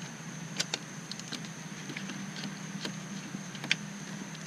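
A few scattered light clicks and taps of a 7 mm socket being worked on the screws that hold the interior door handle, over a steady low hum.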